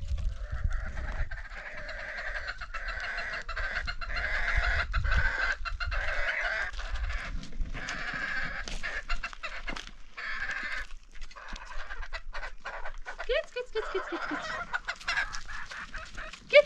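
Chickens clucking and calling continuously, with a call that falls in pitch near the end.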